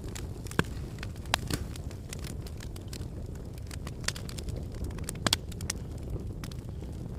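Wood fire burning in a fireplace: a steady low rumble of flames with irregular sharp crackles and pops, a few louder snaps scattered through.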